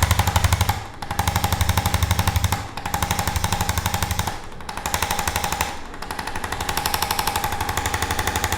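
Handheld electric percussion tool hammering rapidly on a patient's back, with a steady motor hum under the fast even strikes. It is pressed into muscle the chiropractor calls pure scar tissue, and it lets up briefly four times, about one, three, four and a half and six seconds in.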